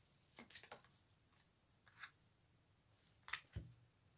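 A few faint, scattered rustles and clicks of tarot cards being handled as a card is drawn from the deck.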